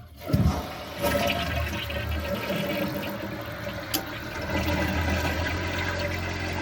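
Toilet flushing: a sudden low thump about half a second in, then steady rushing water.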